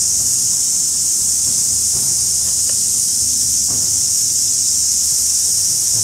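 A steady, high-pitched chorus of insects, an even shrill hiss that does not change.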